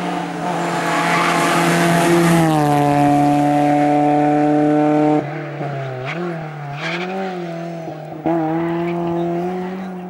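VW Golf III rally car's engine running hard at high, steady revs, its pitch falling about two and a half seconds in. After an abrupt drop in level, the revs dip and rise several times as the throttle comes off and on, then jump louder a little after eight seconds.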